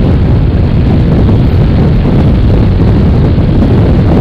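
Steady wind noise buffeting the microphone over the motorcycle's engine and road noise while cruising at highway speed, loud and overdriven.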